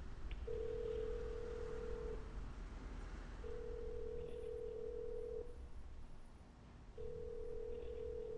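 Telephone ringback tone heard through a mobile phone's earpiece: a steady tone that rings three times, each ring about two seconds long with short gaps, while the call goes unanswered. A low steady rumble sits underneath.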